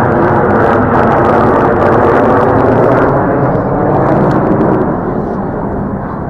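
Jet engines of a low formation of military jets passing overhead: a loud, steady rush of jet noise that begins to fade about five seconds in as the aircraft move away.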